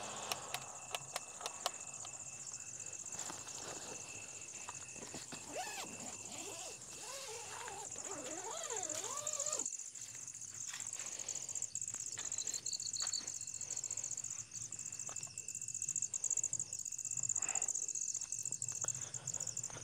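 Steady high-pitched chorus of forest insects such as crickets, with a few sharp clicks in the first two seconds and a wavering animal or bird call in the middle.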